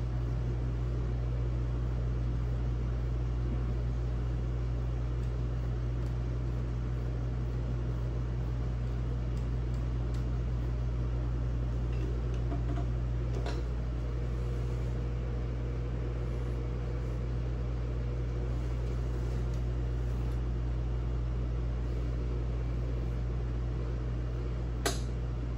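Industrial sewing machine's electric motor humming steadily, with a faint click about halfway and a sharp click near the end.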